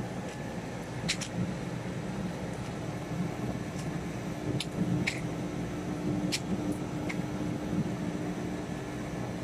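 Chicken gizzard opening machine running with a steady hum, a few short clicks sounding over it.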